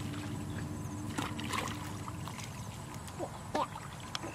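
A hoe blade chopping and scraping into wet mud in shallow ditch water, with a few short sharp knocks over a steady low rumble.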